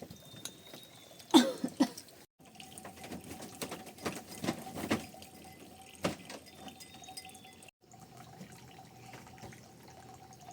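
Water dripping and splashing, with scattered small knocks and clicks; a loud splash or knock about a second and a half in.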